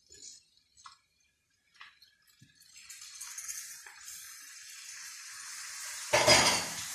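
Raw chicken pieces tipped from a plastic bowl into a hot wok of spice paste: a few soft knocks, then sizzling that sets in about three seconds in and grows louder. A brief loud noise breaks in a little after six seconds.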